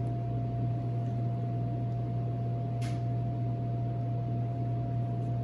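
Steady low mechanical hum of kitchen equipment running, with a faint steady higher tone over it. A single faint click comes about three seconds in.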